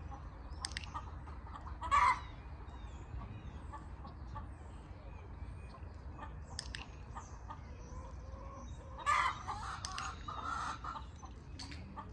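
Chickens clucking, with a loud call about two seconds in and a flurry of calls about nine seconds in.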